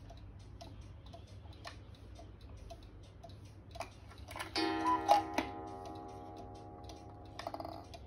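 Black Forest cuckoo clock ticking about twice a second while its minute hand is turned by hand. About four and a half seconds in, the clock starts its sounding mechanism: a chord of steady tones with one loud strike, ringing on for a few seconds before a quick run of clicks.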